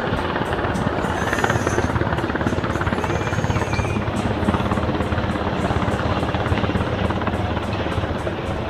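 Helicopter flying, its rotor blades beating in a rapid, steady chop over the engine noise.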